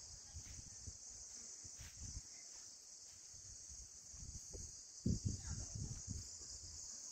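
Steady high-pitched chorus of insects, unbroken throughout, with a few low thuds about five seconds in.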